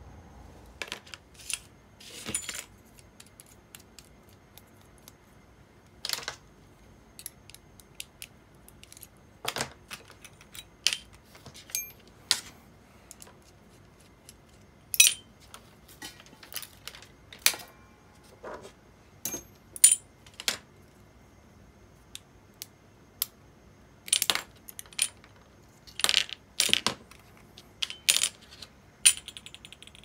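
Small metal parts of an Abu Garcia Ambassadeur 2500C baitcasting reel clicking and clinking irregularly as the reel is taken apart and the pieces are set down on a wooden tray.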